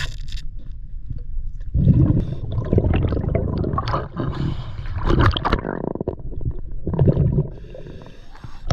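River water rumbling and gurgling around a diver's camera while it is underwater, with uneven surges and bubbling.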